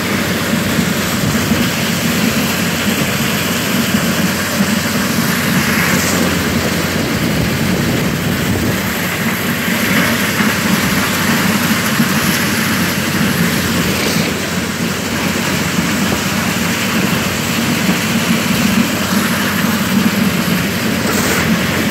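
A Ford 2000 tractor engine runs steadily, driving a New Holland 282 corn sheller through its PTO shaft as ear corn is shelled. The machinery makes a steady mechanical din, and a few scrapes of a steel shovel sound in the wagon bed.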